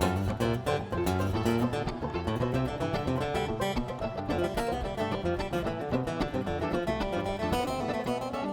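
Background music of quick plucked acoustic guitar and banjo in a bluegrass style, with a steady beat.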